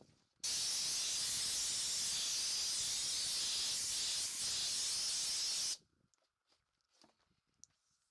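A steady spraying hiss, lasting about five seconds, that starts and stops abruptly.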